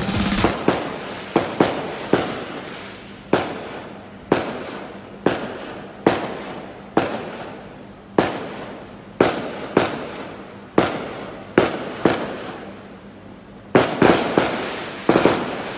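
Fireworks going off: sharp bangs about once a second at an uneven pace, some in quick pairs or threes, each followed by a rolling echo that dies away.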